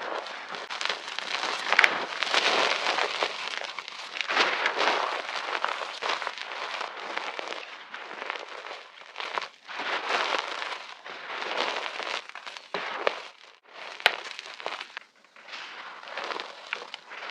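Reformed chalk being crunched and crumbled, a dense crackling that comes in waves with brief pauses. There are sharp snaps about two seconds in and again near the end.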